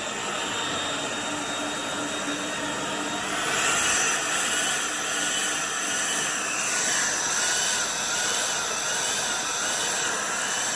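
LG CordZero cordless stick vacuum running with a steady whir that gets louder and higher about three and a half seconds in, its whine then wavering up and down in pitch. The owner blames a filter clogged with dog hair for this vacuum cutting itself off.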